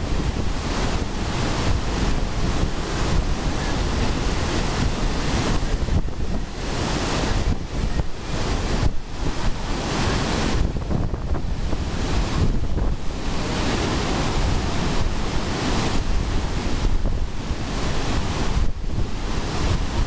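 Iguazu Falls: a massive waterfall's water plunging into its chasm in a dense, steady rush, with wind buffeting the microphone.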